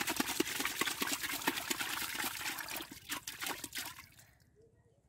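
Water and wet mud splashing and squelching in a narrow hole in the ground as a bare arm works inside it, feeling for fish. It is a dense, crackling wet noise that stops about four seconds in.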